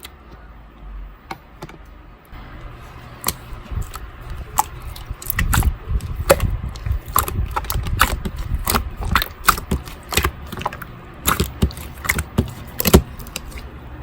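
Slime being squeezed and worked by hand, giving a run of sharp pops and clicks that start about three seconds in and come thickest through the middle, over a low handling rustle.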